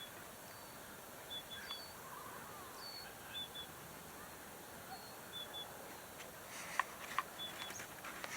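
Faint outdoor ambience with small birds chirping: short high chirps repeating every second or two, with a few lower curving calls. A few sharp clicks come near the end.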